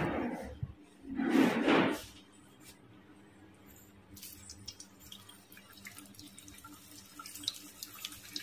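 Two short rustling noises near the start. Then, from about four seconds in, gujiya dumplings deep-frying in hot oil in a kadai: a steady sizzle with many small crackles and pops.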